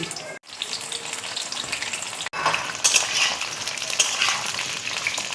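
Pieces of pointed gourd (potol) frying in hot oil in a kadai, a steady sizzle. The sound drops out for an instant twice.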